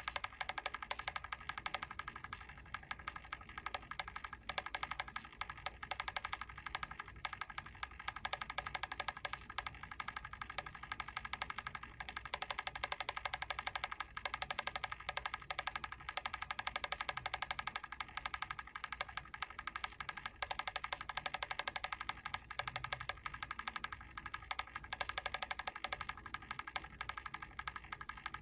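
Mechanical timer switch ticking: a rapid, continuous run of small clicks that never stops.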